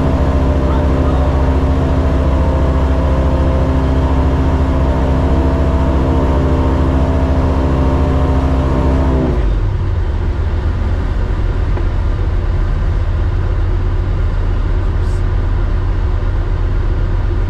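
Light aircraft's piston engine running steadily at cruise power, then throttled back abruptly about nine seconds in to simulate an engine failure; the engine drops to a low idle under the rush of airflow.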